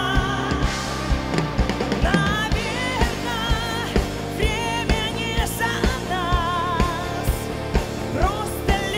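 Live pop-rock song: a woman's voice sings long held notes with vibrato over a full band with a steady drum beat.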